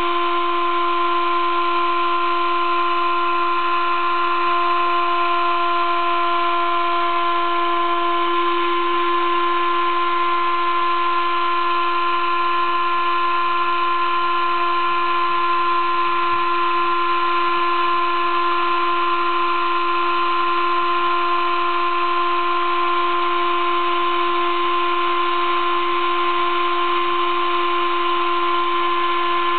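Sable-2015 desktop CNC mill engraving an acrylic board with a 20-degree V engraving cutter: a steady high-pitched whine made of several tones over a cutting hiss. One of the tones drops out about eight seconds in.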